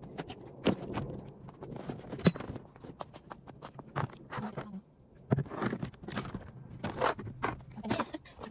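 Hollow black plastic panels of a garden storage box being handled and laid down on paving stones: irregular clacks, knocks and scrapes, with two sharper knocks about two and five seconds in.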